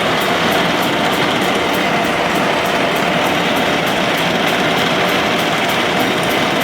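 A heavy shop machine running steadily at speed, having spun up just before, with a faint regular ticking about three times a second.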